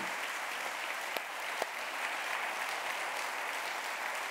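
A congregation applauding: a steady wash of many hands clapping, with a couple of sharper single claps standing out about a second and a half in.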